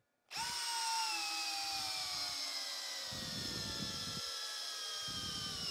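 Bosch Profactor GSB18V-1330C cordless brushless hammer drill starts up and bores a long auger bit down into stacked pine boards. Its motor whine falls steadily in pitch as the bit sinks deeper and takes on load, with rough bursts of the bit chewing through wood partway through.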